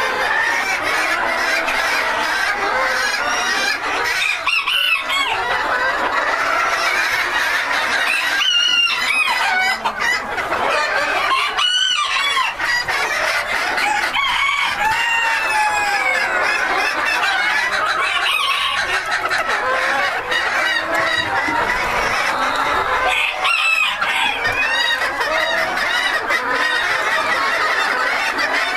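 A flock of Silver Duckwing Phoenix bantam chickens clucking and calling over one another without a break, with roosters crowing several times.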